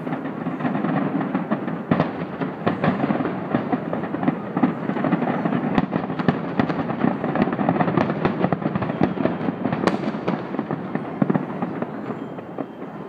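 Fireworks finale barrage: many shells bursting in rapid, overlapping succession with continuous crackle, thinning out near the end.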